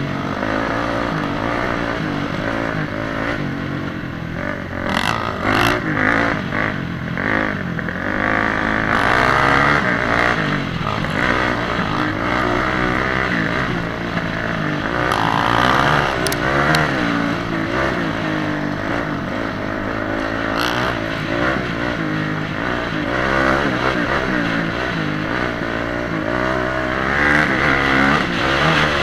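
Vehicle engine running under load, its pitch rising and falling again and again as it revs up and eases off, with rushing noise and occasional knocks.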